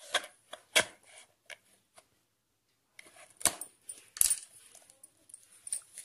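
A blade puncturing and tearing the printed inner seal of a plastic powder tub: a series of sharp clicks and crackles, pausing for about a second before two louder crackles.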